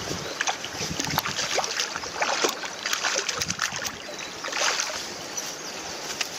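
Hooked rainbow trout thrashing at the water's surface close to the bank, a run of irregular splashes as it is scooped into a landing net.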